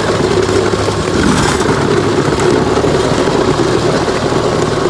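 Gravely garden tractor engine running steadily.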